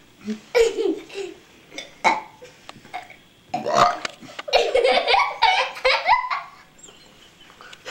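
Deliberate, contest-style human burps, one with a falling pitch about half a second in, then a longer run of burping from about three and a half seconds in, with laughter mixed in.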